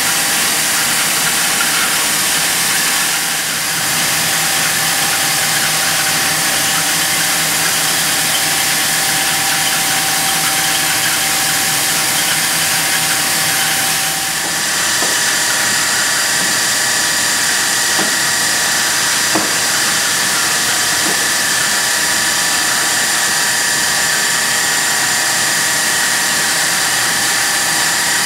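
Shot blasting machine for concrete pavers running: a loud, steady hiss with a constant machine whine, whose pitch shifts about halfway through.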